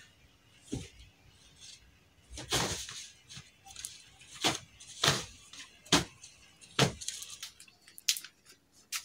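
Bedsheets and blankets rustling and flapping as a bed is made, in a string of brief swishes roughly one a second.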